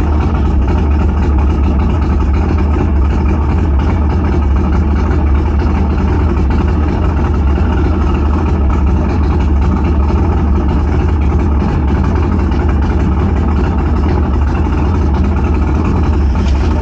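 Outboard motor idling steadily, a constant low engine hum with no change in speed.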